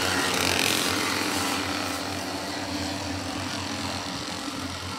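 Small engines of derny pacing motorbikes running steadily as the paced field passes and draws away, the hum fading slowly. A brief hiss sits on top in the first second or so.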